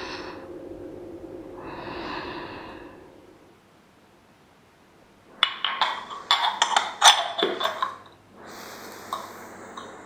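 A woman sighs heavily twice in a row. A few seconds later two earthenware tea cups clink together in a quick run of sharp knocks as they are picked up, followed by a soft rustle of the cloth tablecloth being gathered.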